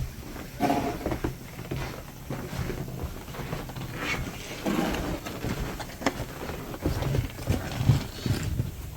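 Snow shovel working through deep snow: irregular scrapes and knocks, unevenly spaced.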